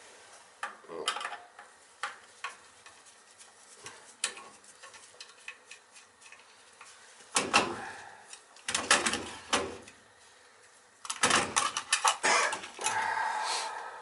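Metal tools and small parts clinking and clattering as they are handled. Light scattered clicks at first, then three denser bursts of clatter in the second half.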